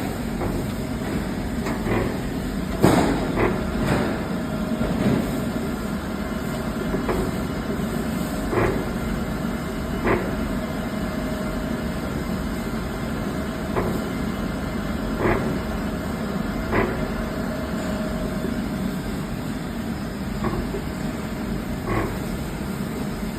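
B3 tumbler running with a steady hum and a knock that recurs about every one and a half seconds, the strange noise it is making.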